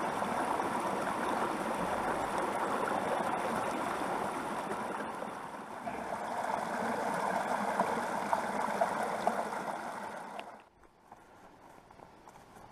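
Small mountain creek running and gurgling over logs and rocks. The water sound drops away suddenly about ten and a half seconds in, leaving a much quieter background.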